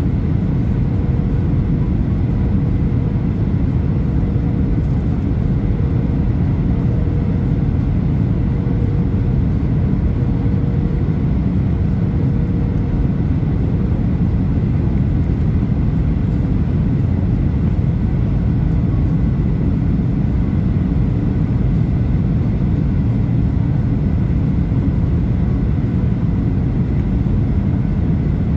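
Steady cabin noise of a Boeing 737 airliner on final approach: jet engines and rushing airflow heard from inside the passenger cabin, with the flaps extended. A faint steady hum sits above the rumble through the first half.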